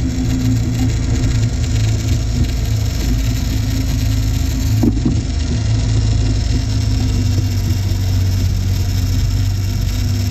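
Small outboard motor on an inflatable boat running steadily at trolling speed, a constant low hum over a steady rush of water and wind. One brief knock about five seconds in.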